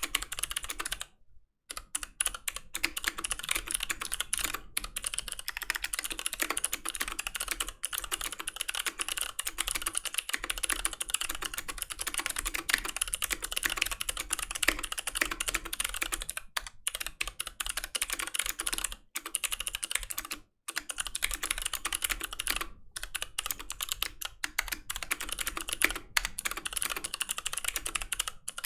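Fox Orange80 (Pizza80) custom mechanical keyboard being typed on quickly and steadily, a fast run of key clacks broken by a few brief pauses.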